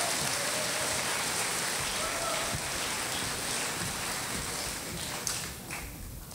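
Audience applauding, a dense clapping that thins out to a few last claps near the end.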